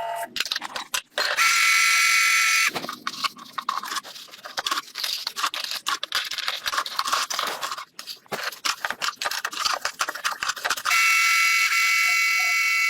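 High-pitched whine of an electric power tool running steadily. In between comes a long stretch of rough, rapid scraping and grinding as the tool works.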